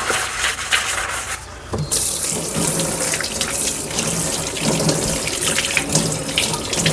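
Kitchen tap running into the sink as a dish is rinsed under it, with light clatter of the dish against the sink. The water comes on about two seconds in, after a stretch of scrubbing and rubbing on the dish.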